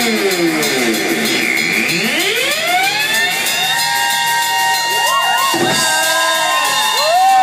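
Live electric guitars played loud through amplifiers, sliding down in pitch and then sweeping back up into held, wavering feedback tones, with no steady beat; a crowd starts cheering toward the end.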